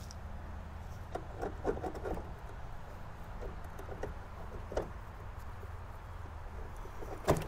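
A lawn mower wheel, its bearings freshly greased, being worked back onto its axle by hand: faint rubbing and scattered light clicks, with a sharper knock near the end.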